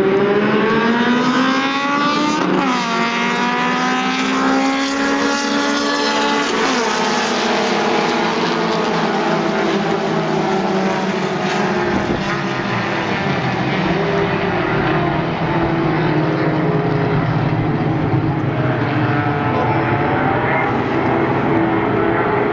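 A pack of mini stock race cars' four-cylinder engines accelerating. Their pitch climbs, drops sharply at upshifts about three and seven seconds in, then settles into a steady mixed drone of many cars running together.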